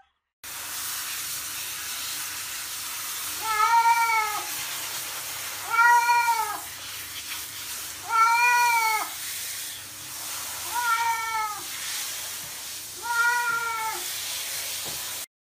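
A cat meowing five times while being showered. The meows come about every two and a half seconds, each one rising then falling in pitch, over the steady hiss of water spraying from a handheld shower head.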